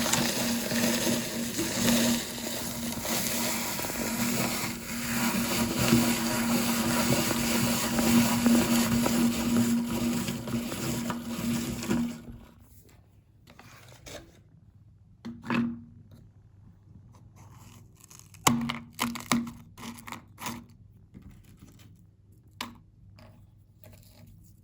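Electric meat grinder running with a steady motor hum while crunching through cookies, stopping abruptly about halfway through. After that, a few short, scattered knocks.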